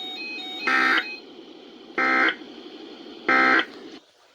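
Three short screechy bursts of digital alert data, about a second and a third apart, over a faint hum that cuts off near the end. They are the emergency alert's end-of-message code, which closes a broadcast weather warning.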